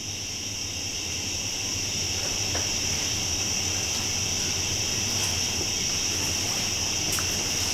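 A steady high-pitched drone over a low hum, slowly growing louder, with a few faint clicks.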